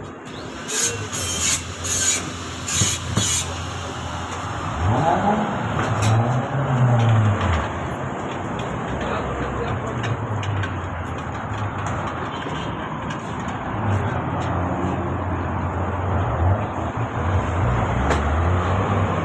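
Vehicle engines running, with a low engine note that rises and falls about five seconds in and again later. Five short hissing bursts come in the first few seconds.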